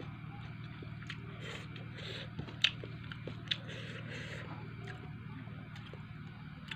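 Eating by hand: chewing and mouth sounds while fingers mix rice and fried fish on a metal plate, with scattered small clicks. A sharp click comes about two and a half seconds in and another a second later, over a steady low hum.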